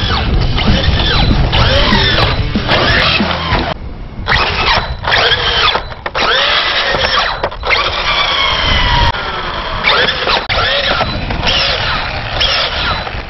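Traxxas HOSS's brushless electric motor revved in repeated short throttle blips, a high whine gliding up and down in pitch again and again with brief gaps. The truck is on its back, so the wheels spin freely.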